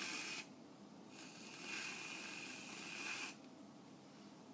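Aerosol can of whipped cream squirting with a hiss and a thin whistle. It cuts off about half a second in, then sprays again for about two seconds.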